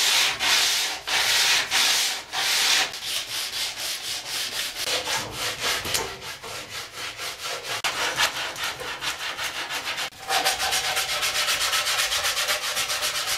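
Sandpaper rubbed by hand back and forth along the rail of a wooden longboard deck, rounding off the edge. The strokes are rhythmic: slower and louder at first, then quicker and softer. After a brief pause about ten seconds in, they pick up again, fast and louder.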